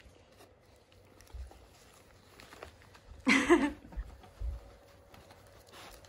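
Faint rustling and light clicks of plastic treat bags in a wicker basket as dogs nose through them. A short, loud voiced sound breaks in about three seconds in.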